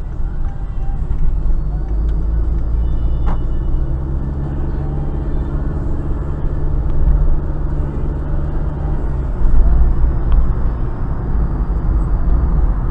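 Car driving: a steady low engine and road-tyre rumble, as heard from inside the cabin, with one short click about three seconds in.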